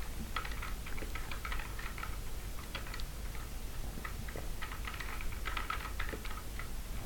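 Computer keyboard being typed on in several short bursts of keystrokes with brief pauses between them.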